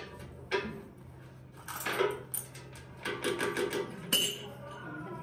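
Metal clinking and knocking: several sharp strikes and a quick run of rattling ticks, over a steady low hum.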